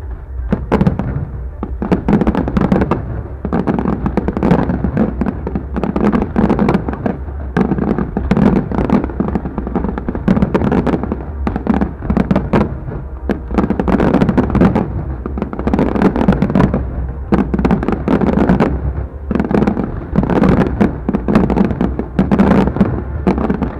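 Fireworks display: a dense, continuous barrage of firework bangs and crackles, several a second, with no let-up.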